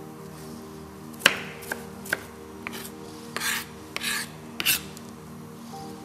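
Chef's knife chopping onion on a cutting board: about seven irregular knocks, the sharpest about a second in, with a couple of longer scraping strokes in the middle.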